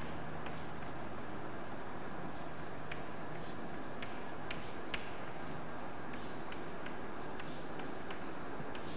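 Chalk on a blackboard: a quick series of short strokes and taps, roughly two a second, as small arrows are drawn one after another, over a steady room hiss.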